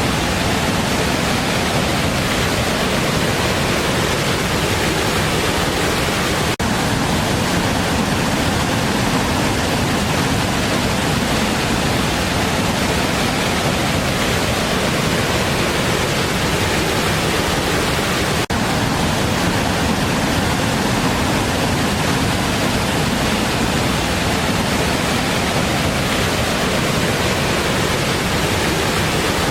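Big waterfall: a loud, steady rush of falling water, with two very short dips about six and eighteen seconds in.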